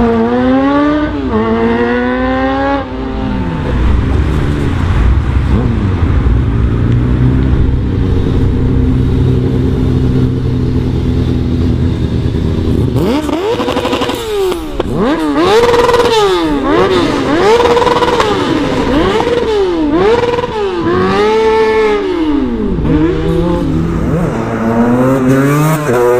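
Motorcycle engine revving: it climbs through the gears at first, holds a steady high, rough drone for several seconds, then is blipped up and down about once a second in a run of throttle revs, and climbs again near the end.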